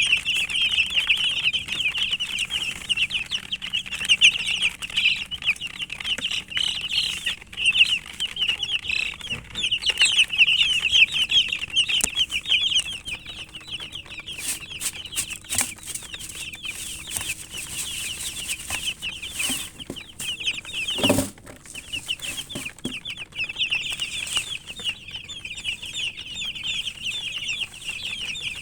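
A group of chicken chicks peeping continuously, many high-pitched chirps overlapping. The chirping breaks off briefly about two-thirds of the way through, where a single knock is heard.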